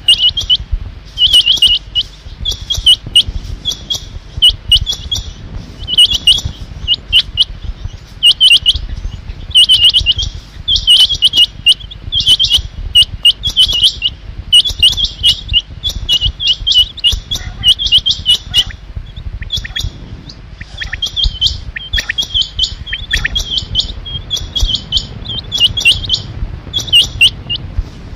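Rain quail calling over and over: short, high calls, often in pairs, coming one to two a second, over a low rumble.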